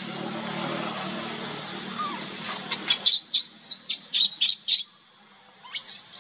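Baby macaque crying: a rapid string of short, high-pitched squeals, about five a second, starting about halfway in, with a few more near the end. A noisy hiss fills the first half.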